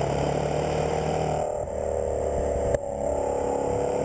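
Maserati Quattroporte VI's 3.8-litre twin-turbo V8 running at low revs as the car drives along, its exhaust note steady and falling slightly in pitch. A sharp click comes just under three seconds in, after which the engine note carries on.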